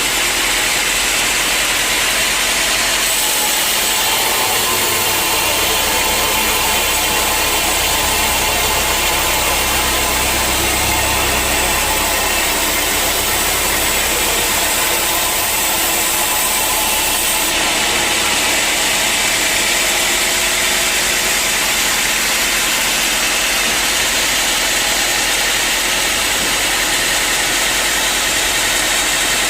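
Sawmill machinery running steadily, with a harsher, hissier stretch from about three seconds in until about eighteen seconds in.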